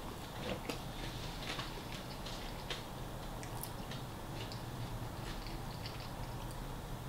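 A person chewing a mouthful of sandwich with the mouth closed: soft, irregular wet clicks and smacks, over a steady low hum.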